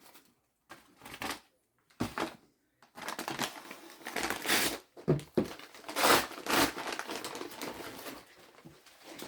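Plastic packaging crinkling and rustling in irregular bursts as items are handled, loudest through the second half.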